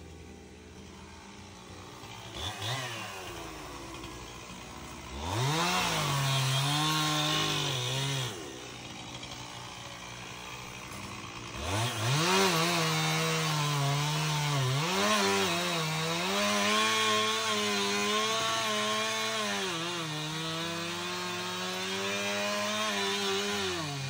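Gas chainsaw revving briefly about two and a half seconds in, then held at high revs for a few seconds before dropping back. From about twelve seconds in it runs at full throttle cutting into a pine trunk, its engine pitch dipping and recovering as the chain bites into the wood.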